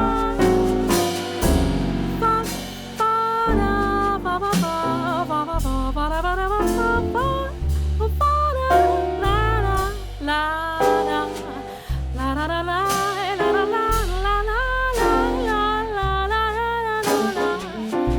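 Jazz ballad played by piano, double bass and drums, with a wordless vocal line sliding and bending in pitch above them.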